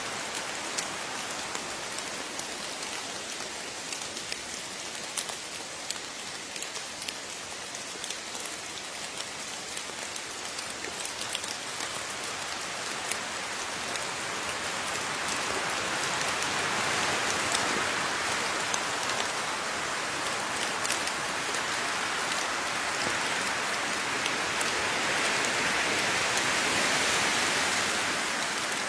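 Steady rain with individual drops pattering on a surface, the hiss swelling somewhat louder about halfway through and again near the end.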